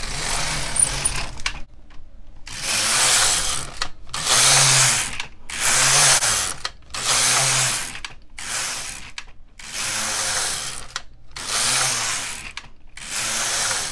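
Silver Reed LK150 knitting machine carriage pushed back and forth along its plastic needle bed, knitting row after row: a scraping, rattling slide for about a second on each pass, with a short break at each turn, one pass every second and a half or so, about nine times.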